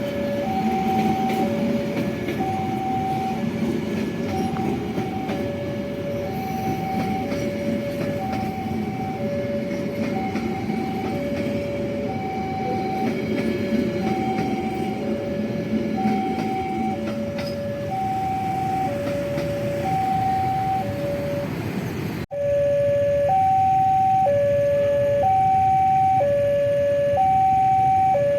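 Electronic railway level-crossing alarm sounding a two-note 'ting-tong', a higher and a lower note alternating about once a second, over the rumble of a passing train. About 22 seconds in the sound breaks off abruptly, and the alarm then rings on alone and louder.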